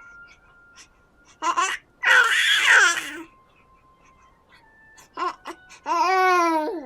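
A baby babbling and squealing: a short babble, then a loud, harsh squeal about two seconds in that lasts about a second. A few short sounds follow, and near the end comes a long squeal that falls in pitch.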